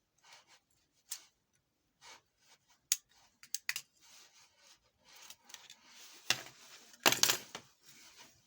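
Small plastic and metal parts of a Nokia 1174 keypad phone clicking and scraping as the opened phone is handled during disassembly, with scattered sharp clicks and a louder cluster of clicks and rubbing about seven seconds in.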